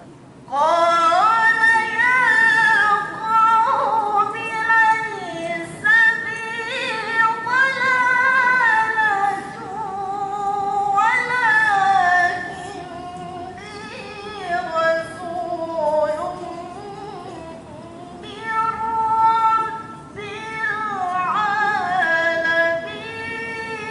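A young woman's voice chanting the Qur'an in melodic tilawah style into a handheld microphone. It comes in about half a second in, in long held, ornamented phrases that waver up and down, with short pauses for breath between phrases.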